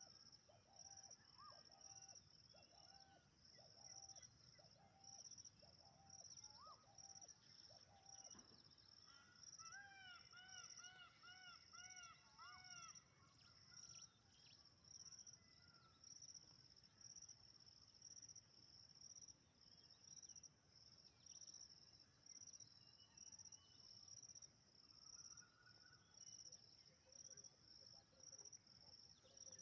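Faint outdoor ambience: insects, likely crickets, chirring in a steady high-pitched pulse, with birds calling over it. There is a run of short repeated notes in the first eight seconds, then a quick series of about eight rising-and-falling notes about ten seconds in.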